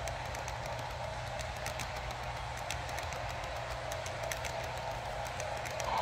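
HO scale model passenger cars rolling along model railroad track: a steady rolling hum with many light, irregular clicks of the small wheels over the rail joints.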